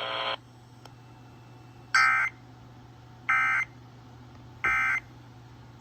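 Emergency Alert System end-of-message signal: three short bursts of screechy two-tone digital data, about 1.3 seconds apart, marking the end of the alert. Just before them, a buzzing tone cuts off right at the start.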